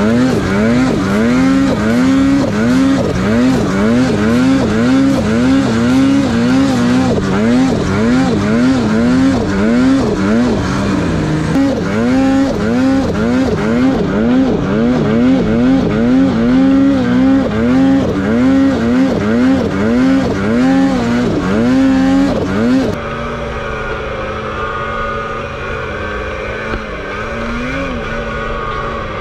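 Snowmobile engine revving up and down in quick repeated swells, about one and a half a second, as the throttle is worked riding through deep powder. About three quarters of the way through it cuts abruptly to a quieter, steadier engine note.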